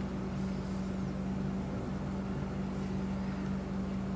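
Steady low hum at one unchanging pitch, with no clicks or other distinct sounds.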